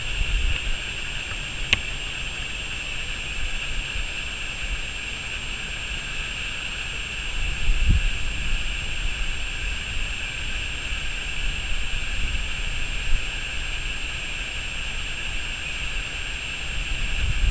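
Wind gusting and rumbling on the microphone, strongest about eight seconds in and near the end, over a steady high-pitched drone.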